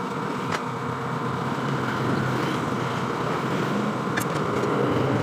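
A steady mechanical hum, with a few light metallic clicks as bolts are fitted by hand into a radiator's tank flange: one click about half a second in, and two close together about four seconds in.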